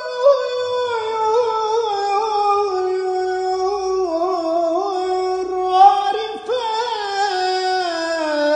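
A man singing a Turkish Islamic kaside (münacat) unaccompanied, holding one long melismatic line without words. The pitch is ornamented and drifts slowly downward, with a brief break about six seconds in before the line picks up again and falls further near the end.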